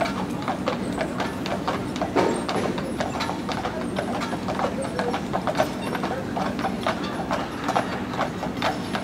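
Hooves of a pair of draft horses clip-clopping on pavement at a walk as they pull a wagon, an uneven run of sharp knocks several times a second.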